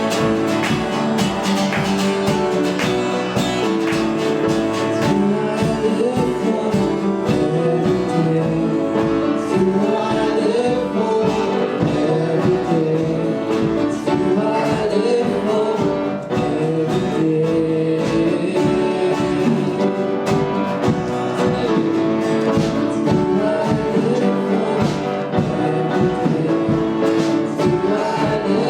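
Church worship song: singing over guitar accompaniment, steady and continuous.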